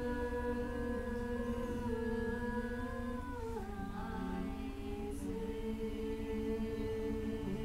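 Group of voices chanting in long held notes, several pitches sounding together; the chord drops about three and a half seconds in and rises again about five seconds in.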